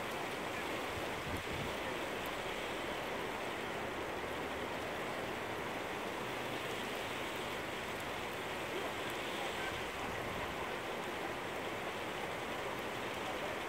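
Steady rushing of water, an even hiss with no breaks, from flood water running high.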